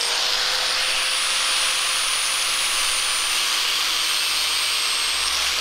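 Angle grinder running steadily at full speed with a high whine, its disc cutting through a vinyl siding window-trim profile.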